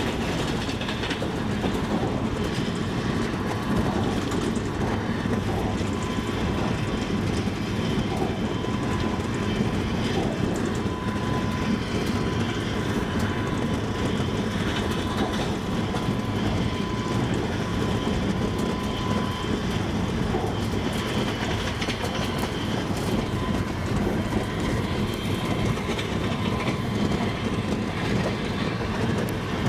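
Double-decker passenger train running on the rails: a steady rumble with the clatter of wheels over the track, and a faint thin whine for several seconds in the middle.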